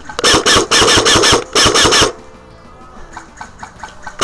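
Airsoft gun firing close by in short bursts of automatic fire, a buzzing rattle: about six quick bursts in the first two seconds, then another starting right at the end.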